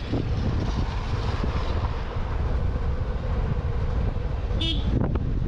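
Wind buffeting the microphone and tyre rumble from a motorbike coasting downhill with its engine switched off. A short horn beep sounds near the end.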